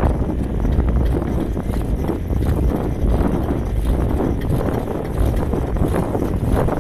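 Wind buffeting the microphone of a camera on the move: a steady low rumble with scattered knocks and rustles.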